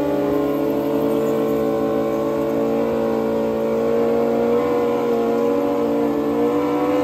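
Drag motorcycle engine held at high, steady revs during a burnout, with its pitch rising slightly near the end.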